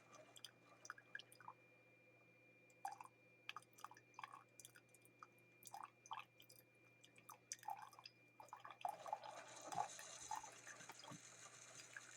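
Faint, irregular drips and small ticks over a low steady hum, getting a little busier near the end.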